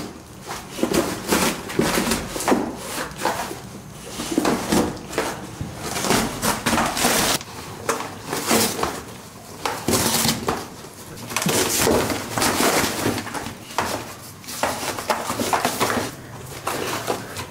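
A dog tearing into a cardboard box and its printed paper packaging: irregular ripping and crinkling of cardboard and paper.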